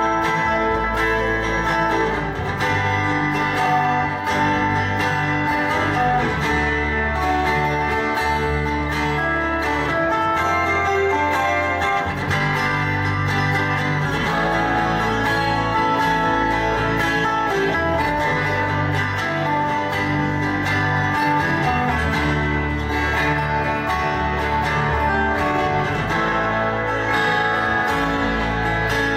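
Two acoustic guitars, one a twelve-string, playing a song's instrumental introduction together, strummed and picked at a steady level.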